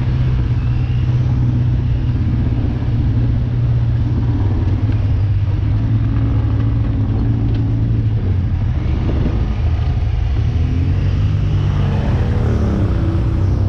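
Vehicle engine running with a steady low rumble, its pitch shifting briefly near the end.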